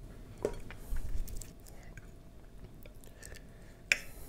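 Close-miked chewing of a mouthful of instant mi goreng noodles, with a few soft mouth clicks early and a sharp clink near the end as a metal fork touches the ceramic bowl.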